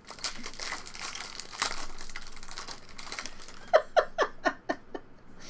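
Foil wrapper of a trading-card pack being torn open and crinkled, then a short giggling laugh about four seconds in.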